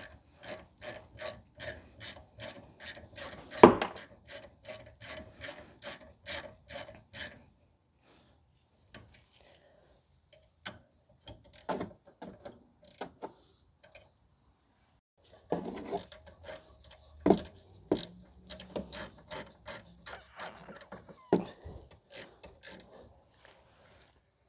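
Hand ratchet wrench clicking in two long runs of even strokes, about three clicks a second, as bolts are run in on a rear brake caliper. A few louder single knocks come between, the loudest about four seconds in.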